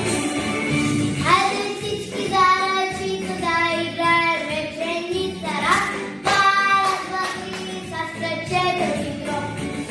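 A young girl singing a song over instrumental backing music; her voice comes in a little over a second in.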